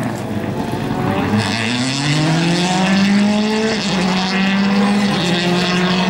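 Subaru Impreza rally car's flat-four engine accelerating hard, rising in pitch for about three seconds and then holding steady at high revs.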